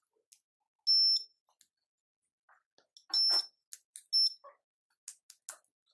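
Short high-pitched electronic beeps, three times, with small clicks and taps between them.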